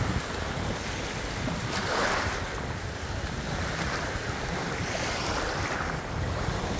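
Small waves washing in and out over a pebble-and-shell shore, the wash swelling and fading several times, with a low rumble of wind buffeting the microphone.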